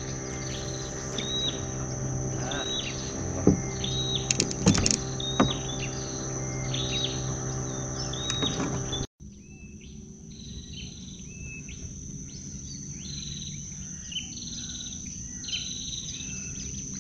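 Dawn river-bank ambience: a steady high-pitched insect drone with a short chirping call repeated about once or twice a second. A low steady hum runs underneath until a brief dropout about nine seconds in. A few sharp clicks come between about three and a half and five and a half seconds in.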